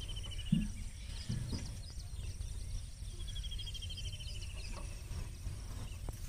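Open-field ambience: a bird repeating a fast, even trill twice, with scattered short chirps, over a steady low rumble, and a soft thud about half a second in.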